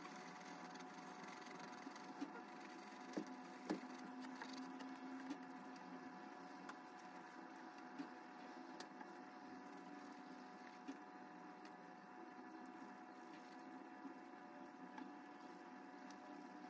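Near silence: a faint steady room hum, with a few soft ticks.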